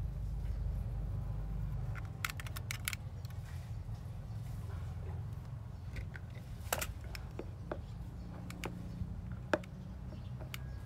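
A utility knife cutting aloe vera leaves, with the leaves being handled: scattered sharp clicks, a quick cluster about two seconds in and single ones later, over a steady low hum.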